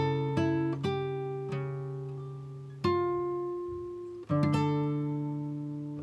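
Background music: slow plucked acoustic guitar, single notes and chords struck every second or so and left to ring out and fade.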